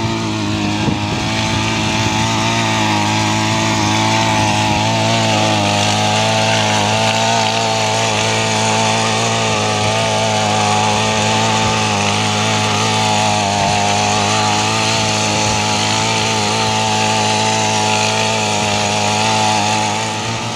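Small engine of a walk-behind power weeder running steadily under load while it tills the soil, its pitch wavering only slightly and its level dipping a little near the end.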